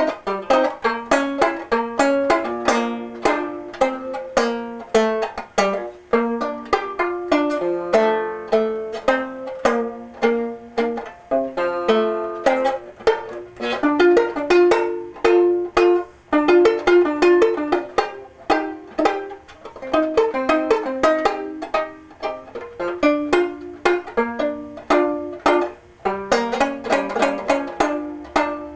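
Solo S.S. Stewart five-string banjo, fingerpicked: a continuous run of quick plucked notes and chords.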